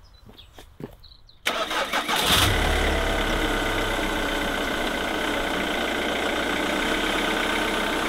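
Diesel engine of a Ford Transit motorhome cranking and catching about a second and a half in, then idling steadily.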